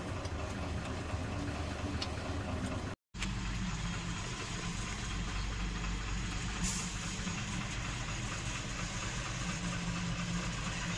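A vehicle engine idling: a steady, even low hum that cuts out briefly about three seconds in and then carries on.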